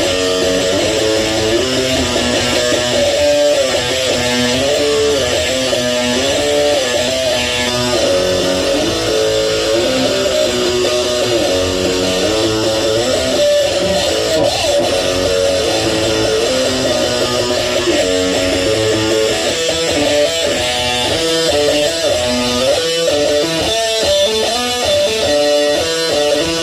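Electric guitar playing a continuous riff of quickly changing picked notes, stepping up and down in pitch at a steady loudness.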